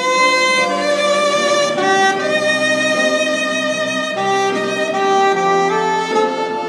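Saxophone played solo: a slow melody of long held notes, each rich in overtones, moving from one pitch to the next about every half second to a second.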